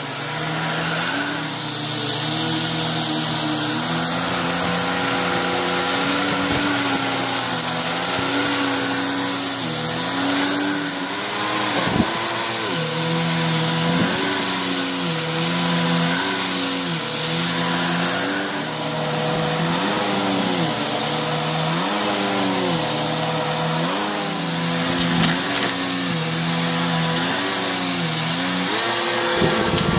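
Bissell upright vacuum cleaner running on carpet, a steady motor hum with a high whine. From about halfway in, its pitch dips and recovers roughly every two seconds as it is worked back and forth.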